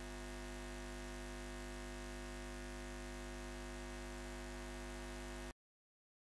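A steady, faint electrical hum with a buzzy edge, holding one unchanging pitch, that cuts off abruptly to dead silence about five and a half seconds in.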